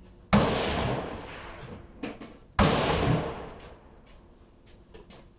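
Two black-powder smoothbore gunshots about two and a quarter seconds apart, each a sudden loud report trailing off over a second or so.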